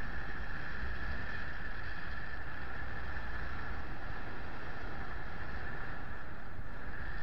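Wind rushing steadily over the microphone of a paraglider in flight, with a steady high-pitched tone running underneath.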